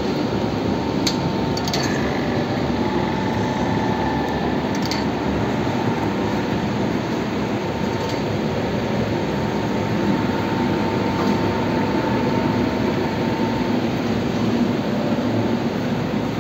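Box punching machine running: a steady mechanical noise from its electric motor and drive, with a faint held whine and a few light clicks in the first few seconds.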